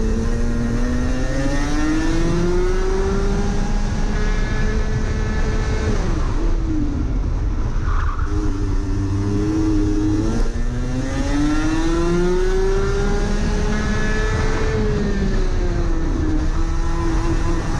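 Rotax Max Senior 125 cc two-stroke kart engine at racing speed, heard onboard: its pitch climbs steadily at the start, drops as the throttle comes off for a corner about six seconds in, climbs again from about ten seconds and dips once more near fifteen seconds. A steady rush of wind and tyre noise runs underneath.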